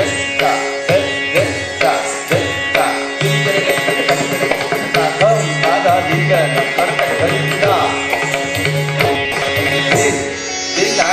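Indian classical music accompanying Odissi dance: a steady drone under a gliding melodic instrument, with low hand-drum strokes keeping a rhythm.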